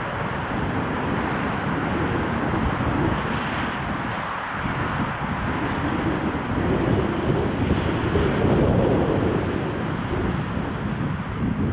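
Airbus A320 jet airliner's engines heard on a landing approach, mixed with strong gusty wind buffeting the microphone. It is a steady rushing noise that swells a little past the middle.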